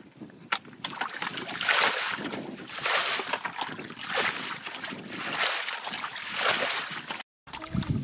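Muddy water splashing and sloshing in a rhythmic run of swishes, about one a second, as it is scooped and thrown by hand or bucket. The sound cuts out for a moment near the end.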